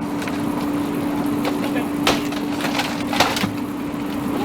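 Wood siding being pried and pulled off a house wall: several sharp cracks and snaps of splintering wood, the loudest about two and three seconds in, over a steady low hum.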